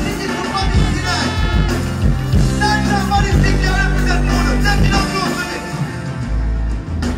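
Live dancehall music over a large outdoor sound system: a deejay's voice on the microphone over a riddim with deep bass and regular drum hits.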